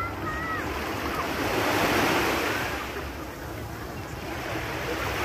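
Small sea waves breaking and washing up on a sandy beach, swelling to a peak about two seconds in and building again near the end. Faint distant calls are heard at the start and near the end.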